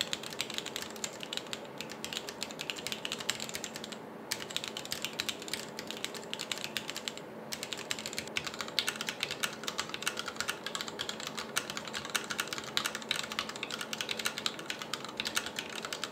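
Fast typing on a Corne split mechanical keyboard in a 3D-printed case, fitted with Gateron MX Yellow Pro linear switches and DSA blank keycaps: a steady stream of key clacks, with brief pauses about four and seven seconds in.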